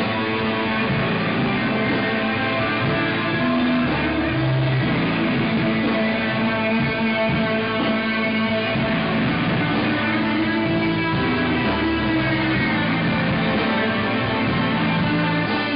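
A band playing live, with electric guitar to the fore.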